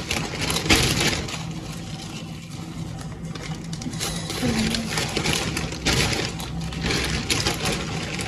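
Groceries being unpacked and handled: irregular crinkly rustling of packaging in bursts, over a steady low hum.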